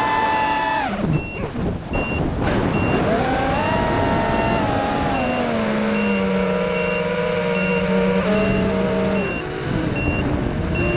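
FPV quadcopter's electric motors and propellers whining. The pitch drops sharply about a second in as the throttle is cut, then rises again and eases down in steps. A short high beep repeats about once a second from about a second in.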